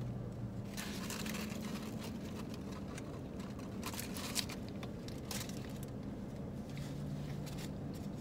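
Paper burger wrapper crinkling now and then, with chewing, over a steady low hum inside a car.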